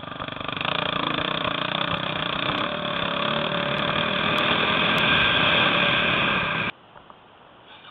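Enduro motorcycle engine running as the bike rides a rough dirt track, heard loud on the onboard microphone. It cuts off suddenly near the end, leaving only a faint background.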